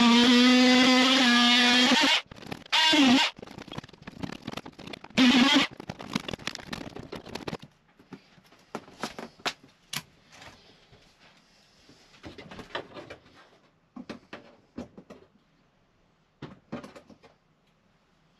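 Corded oscillating multi-tool cutting through the old sunroof pane: a loud, steady buzz for about two seconds, then two short bursts as the trigger is pulsed. After that come scattered clicks, knocks and scraping as the cut plastic section is worked loose, getting quieter in the second half.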